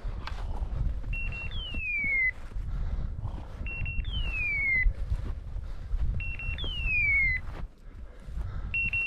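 Beeper collar on an English setter sounding its point signal: a short double beep followed by a falling, hawk-like screech, repeated exactly about every two and a half seconds, which signals that the dog is standing on point. Wind rumble on the microphone runs underneath.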